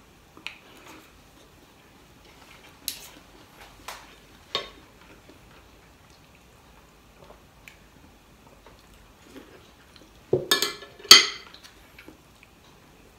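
Spoon and fork clinking and scraping against a plate and bowl while eating. There are a few light clicks in the first five seconds, then a louder run of clinks about ten to eleven seconds in.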